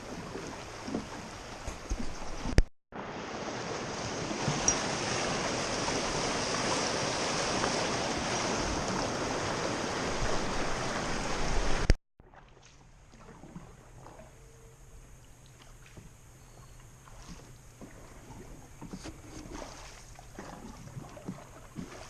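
Rushing river water around a paddled boat, a steady, loud hiss that drops to a much quieter wash with scattered small knocks after a cut about halfway through.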